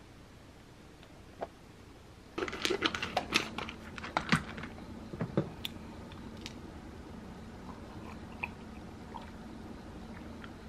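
A quick, dense run of small clicks and rattles, starting a little over two seconds in and lasting about three seconds, from supplement containers being opened and pills handled. A few scattered light clicks follow over a low steady hum.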